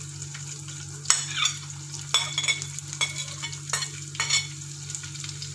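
Chopped shallots sizzling in hot coconut oil in an aluminium pressure cooker, with a steady hiss, while a steel spoon stirs them and clicks and scrapes against the pot several times.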